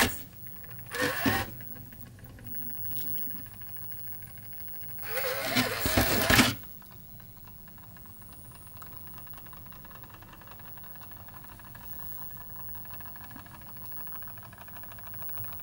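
Small brushless motor and drivetrain of an RC scale crawler running at a slow crawl with a low steady hum. It rises into two louder, wavering whines, about a second in and again around five to six seconds, as throttle is added on the rock climb.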